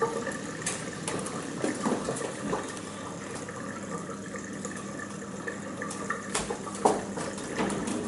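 A few knocks and clinks of dishes and a wooden kitchen drawer being handled, over a steady hiss with a faint low hum.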